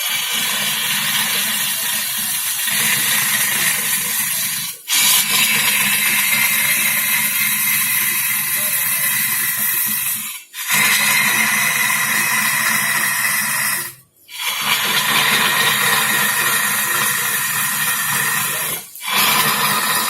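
Wood lathe running with a turning tool cutting into the spinning wood: a steady rough hiss that cuts out briefly four times.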